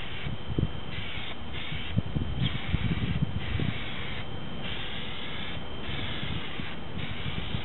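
Aerosol can of Plasti Dip rubber coating spraying a hiss in repeated short strokes, roughly one a second, with brief pauses between them.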